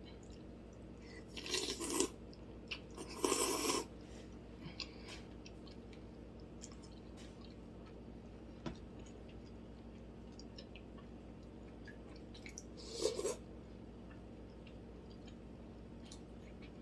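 Close-miked eating of wonton soup: quiet chewing and small mouth clicks, broken by three short, louder eating noises about one and a half, three and thirteen seconds in.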